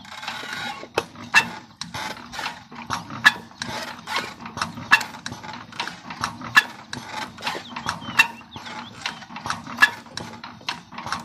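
Diesel engine turning over with a rapid metallic ticking over a low steady hum, several clicks a second and a louder click about every second and a half. The ticking is the sign of a camshaft moving out of place and rubbing on an adjacent bar.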